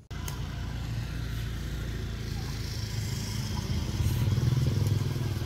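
An engine running steadily, cutting in suddenly and growing louder about four seconds in.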